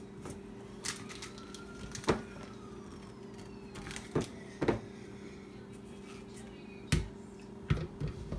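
Several sharp plastic knocks and clicks as a blender jar and its lid are handled and the jar is set onto the blender base, over a steady low hum. The blender motor is not running.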